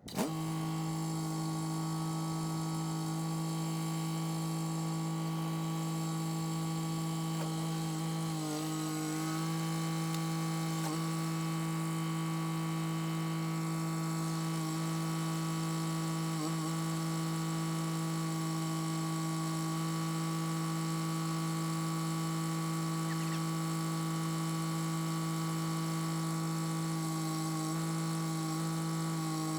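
John Deere 1025R compact tractor's three-cylinder diesel engine running steadily at a constant high throttle, with a slight wobble about eight and sixteen seconds in.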